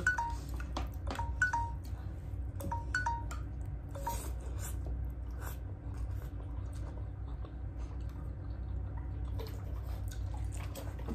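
Close-up eating sounds: wet mouth clicks and squishing from chewing, with a few short light clinks in the first few seconds, over a steady low hum.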